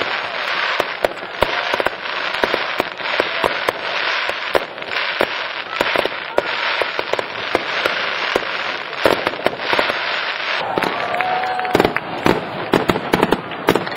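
Fireworks display: a dense, continuous rapid crackling and popping of aerial shells. About ten seconds in the crackle thins and heavier, deeper bangs take over.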